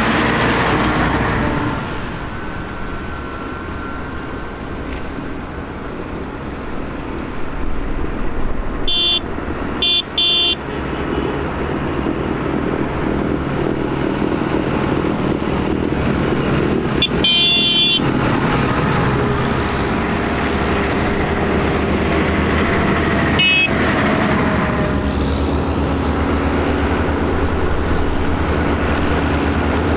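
Diesel engines of a line of farm tractors running as they drive up, growing louder as they come closer. A horn toots in short bursts several times: twice about nine to ten seconds in, once more around seventeen seconds and briefly again near twenty-three seconds.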